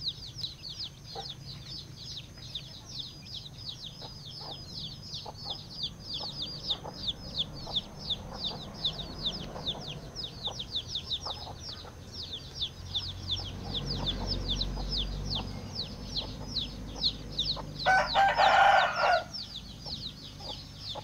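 Chicks peeping without pause, a quick run of high, falling peeps several a second, with a hen's low clucks among them. Near the end a rooster crows once, the loudest sound.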